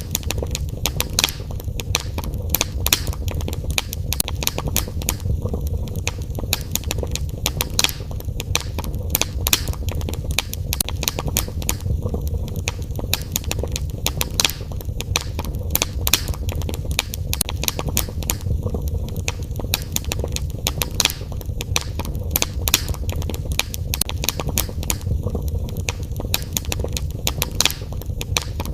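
Wood fire in a fireplace crackling, with dense, irregular pops and snaps over a low steady rumble.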